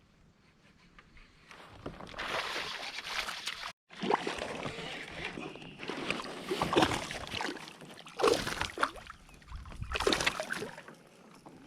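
Kayak paddle strokes in water: repeated dips and splashes that come in uneven surges every second or two.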